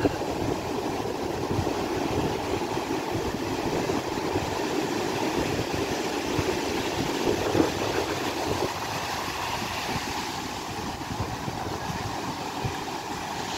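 Ocean surf breaking and washing up the beach in a steady rushing noise.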